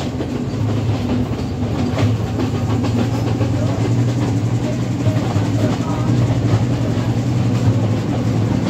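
Express passenger train hauled by an M6 diesel-electric locomotive, heard from an open carriage window while running. There is a steady low drone under a continuous rumble of wheels on the rails, with a few faint clicks.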